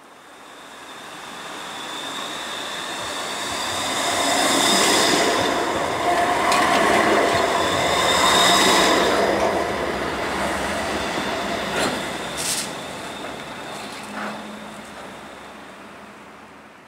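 Pesa Swing 122NaB low-floor tram passing close by on the rails: the rolling noise swells as it draws level and fades as it moves away, with a thin high whine over it. Two sharp clicks about twelve seconds in.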